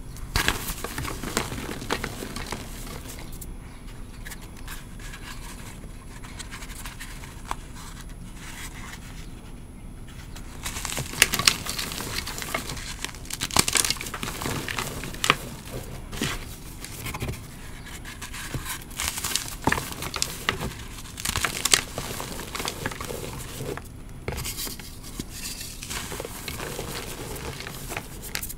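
Dry chalk reforms of cornstarch, calcium carbonate and gym chalk with bits of dried rose and leaf being crushed and crumbled by hand: irregular crunching and crackling. Softer at first, with sharper, louder crunches from about a third of the way in.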